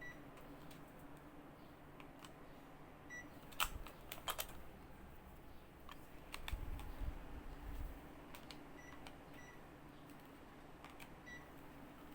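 Panasonic mini split air conditioner with a faint steady hum and several short high beeps. There are two sharp clicks about four seconds in and a low rumble around seven seconds.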